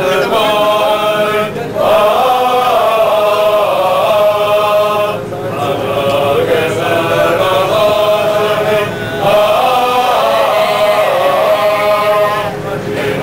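Choral singing laid over as a soundtrack: several voices sing chant-like phrases of long held notes, with short breaks between phrases every few seconds.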